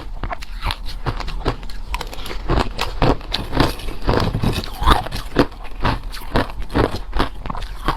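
A person chewing crushed hard ice close to the microphone: a rapid, uneven run of crisp crunches, several a second.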